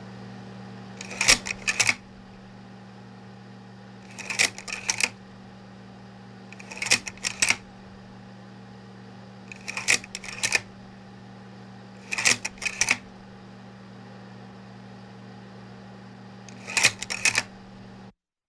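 Short clusters of sharp mechanical clicks, six in all, two to three seconds apart, over a steady low hum. The sound cuts off just before the end.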